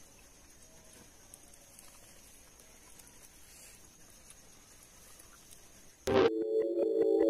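Faint background hiss with a few tiny ticks. About six seconds in, electronic keyboard music starts suddenly and loudly.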